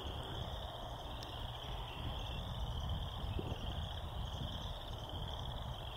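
A continuous high-pitched trilling chorus in rapid pulses, coming in long overlapping phrases, over a low steady rumble.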